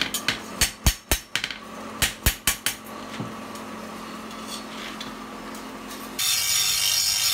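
Hand hammer striking a hot steel knife blank on a small steel anvil block: two quick runs of sharp, ringing blows, about ten in all, over a steady hum. Near the end a loud, steady hiss sets in.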